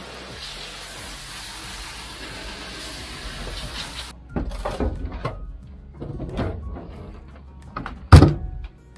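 Hose water spraying into a boat's locker, hissing steadily as it rinses out the compartment, then shutting off about four seconds in. Knocks and scrapes follow, with one sharp, loud knock near the end.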